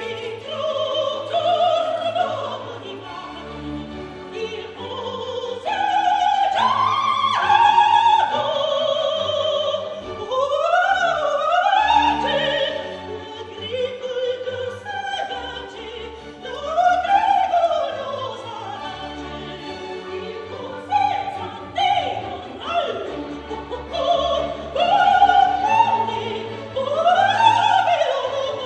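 Soprano singing an opera aria with wide vibrato and quick sweeping runs up and down, accompanied by a symphony orchestra.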